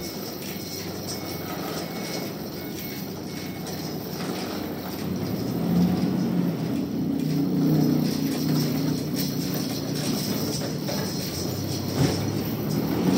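Sawmill machinery running, a steady mechanical rumble that grows louder about five seconds in.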